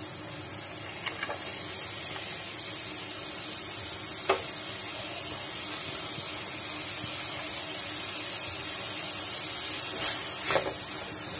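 Minced meat sizzling steadily in hot oil in a stainless steel frying pan. A few light clicks of a spoon against the pan come about a second in, near four seconds and twice near the end as the added onions are stirred in.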